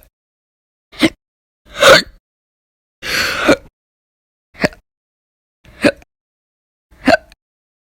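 A woman hiccupping six times, roughly once a second, each hiccup short and sharp; the third is longer and noisier.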